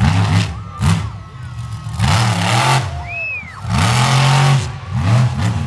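Monster truck engine revving hard in repeated blasts, rising and falling in pitch, about five in a few seconds.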